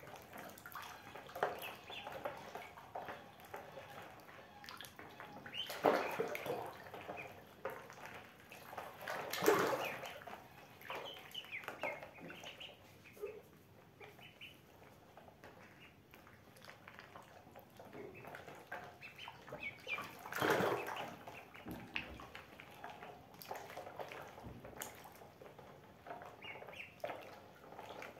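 Ducklings paddling and dabbling in a plastic basin of water: a light patter of small splashes with brief peeps, and three louder splashes, about six, nine and a half, and twenty seconds in.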